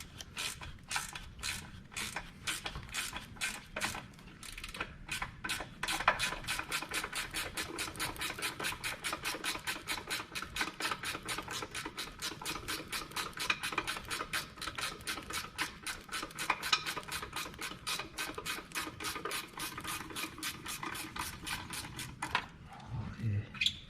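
Hand ratchet wrench clicking steadily, about five clicks a second, as it backs out a freshly heated sway bar bushing bracket bolt that now turns easily. The clicking stops near the end as the bolt comes free.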